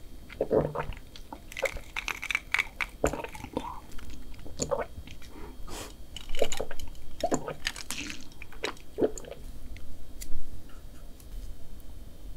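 Close-miked drinking of iced drinks through a straw: a string of short sips and swallows.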